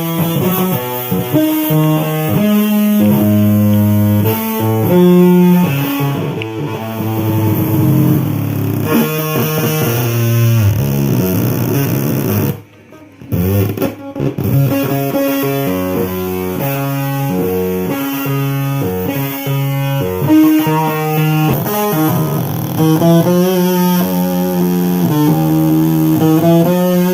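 Music from an amplified, distorted instrument playing a stepping run of pitched notes. It cuts out briefly about halfway through.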